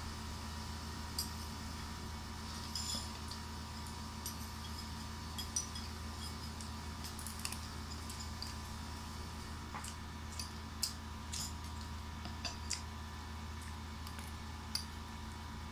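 Spoon clinking and scraping against plates and the mouth sounds of eating: scattered short, light clicks over a steady low hum.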